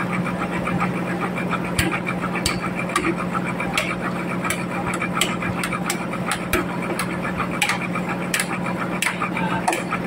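Sawmill machinery running with a steady hum, overlaid by irregular sharp clicks and knocks.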